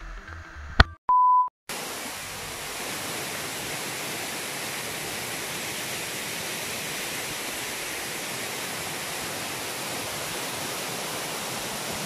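Music cuts off with a click, and a short electronic beep sounds about a second in. After that comes a steady, even rush of fast-flowing water from the rain-swollen river and waterfall, loud enough to make a lot of noise.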